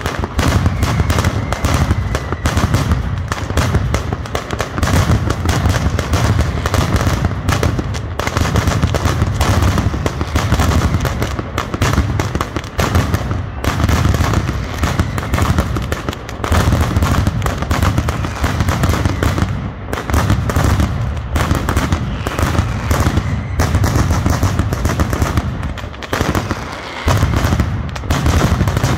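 Mascletà firecrackers (masclets) going off in a dense, continuous barrage of loud bangs, many per second. The barrage briefly eases a little past two-thirds of the way through and again near the end.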